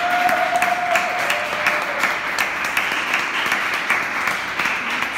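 Several people clapping and applauding, with a high whooping cheer at the start that rises and holds for about a second.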